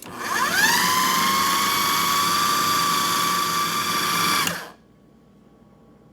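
Food processor motor spinning up with a rising whine and running steadily for about four seconds, mixing the wet muffin ingredients, then cutting off.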